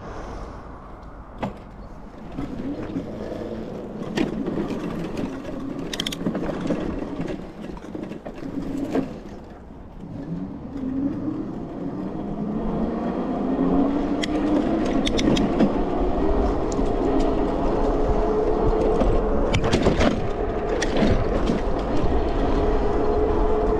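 Sondors Madmods electric bike under way, its motor whine rising steadily in pitch as it picks up speed, over tyre and wind rumble that grows louder. A few sharp clicks and knocks cut in here and there.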